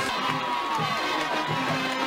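High school football crowd in the stands cheering and shouting.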